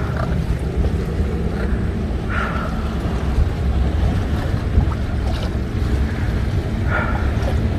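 Steady low rumble of a small boat on the water, its engine running, with wind buffeting the microphone. Two brief higher-pitched sounds stand out, about two and a half seconds and seven seconds in.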